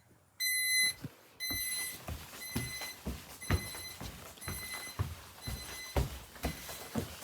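Electronic alarm beeping in one high, even tone: two half-second beeps about a second apart, then shorter, fainter beeps about twice a second. Low thumps sound under the later beeps.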